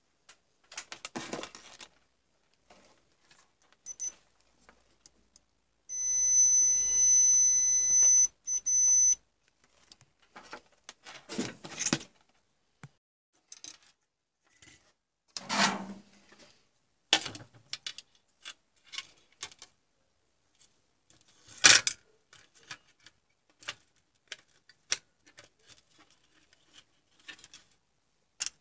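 Scattered clicks and taps as a circuit board and plastic frame parts are handled. About six seconds in, a steady high electronic beep sounds for about three seconds, with a tiny break near its end.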